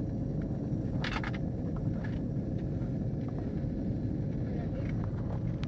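Steady low rumble of an airliner heard from inside its cabin, with a faint steady hum over it and a short burst of noise about a second in.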